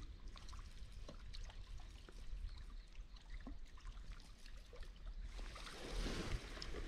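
Faint water lapping and trickling against a kayak hull, with small scattered ticks; the water sound gets fuller near the end.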